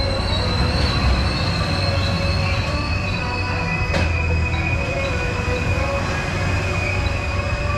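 Zamperla Disk'O Coaster ride's spinning disc rolling along its curved steel track: steady high-pitched wheel squeal over a low rumble, with one sharp click about four seconds in.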